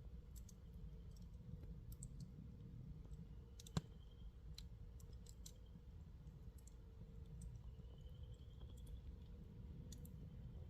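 Campfire crackling quietly: irregular small pops and clicks from the burning wood, one sharper pop about four seconds in, over a low steady rumble.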